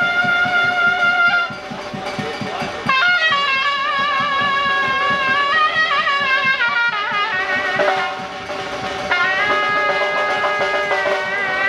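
Surnay, the Uzbek shawm, playing a loud ornamented melody of long held notes and wavering trills over a steady drum beat. The surnay drops out briefly twice while the beat continues.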